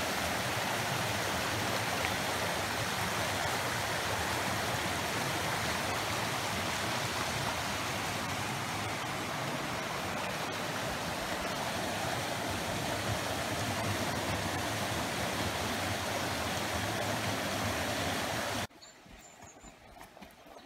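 Fast mountain stream rushing over rocks: a loud, steady rush of water that cuts off suddenly near the end.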